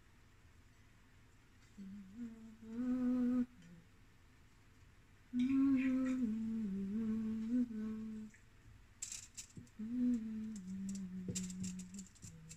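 A woman humming a tune in three phrases of held notes that step up and down in pitch. A few light clicks sound in the second half.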